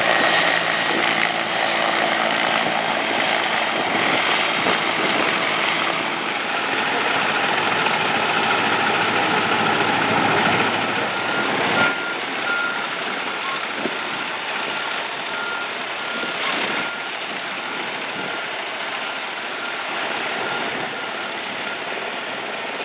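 Fire department helicopter hovering close overhead, with a fire engine's diesel running. About halfway through, the sound changes to a heavy rescue wrecker truck's engine running as it rolls up, with a high beeping repeating about twice a second.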